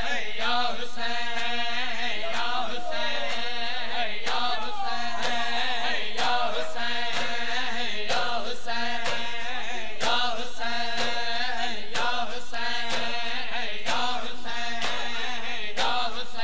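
A male voice chanting a noha (Shia mourning lament), with the mourners' chest-beating (matam) striking in a steady rhythm under the chant.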